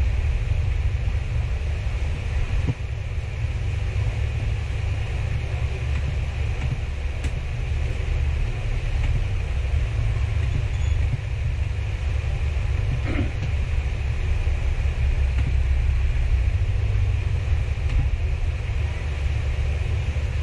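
A steady low rumble with a few faint, scattered clicks and taps.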